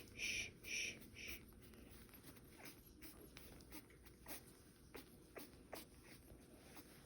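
Three short 'shh' shushing sounds in the first second and a half, then a few faint, scattered sharp clicks from small nail clippers trimming a three-week-old puppy's nails.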